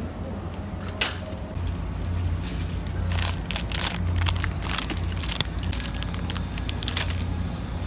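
Irregular sharp clicks and crackles over a steady low hum.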